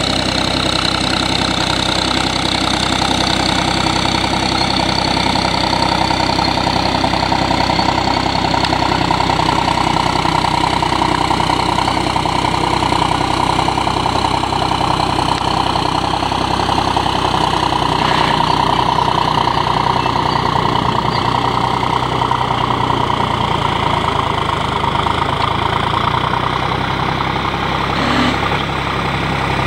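A motor running steadily, with a high whine whose pitch drifts slowly up and down.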